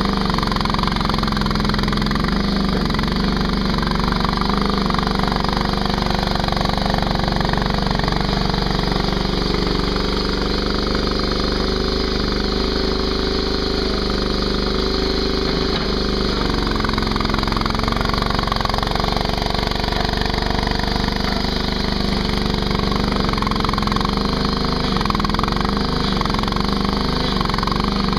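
Ditch Witch SK300 mini skid steer engine running steadily at high revs, its pitch shifting a little at times while the machine works.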